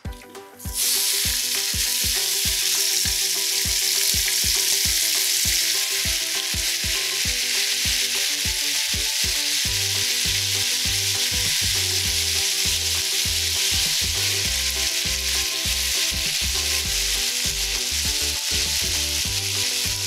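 Diced raw chicken breast dropped into hot vegetable oil in a nonstick frying pan and frying with a loud, steady sizzle that starts suddenly about a second in, while it is stirred with a silicone spatula.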